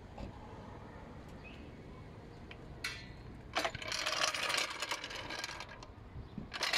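Hydraulic floor jack being released and lowered, then pulled out from under the car: after a quiet start and a single click, a dense metallic rattling and scraping begins about halfway in as the jack and its wheels are dragged over the asphalt.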